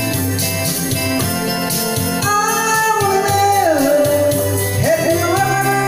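Karaoke backing track of a rock song with guitar and drums, and a man singing along through a microphone; from about two seconds in a held note glides down, then rises again near the end.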